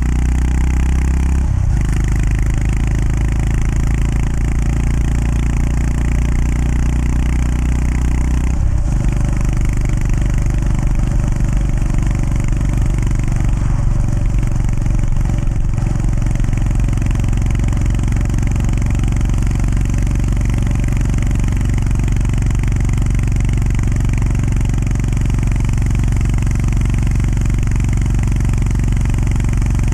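Honda GB350S single-cylinder engine running under way, heard from the rider's position over steady wind and road noise. There are two brief breaks in the engine note, about a second and a half and about nine seconds in, each followed by a change in engine pitch.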